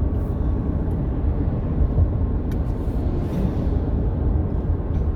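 Steady low rumble inside a running car's cabin, with a couple of faint clicks.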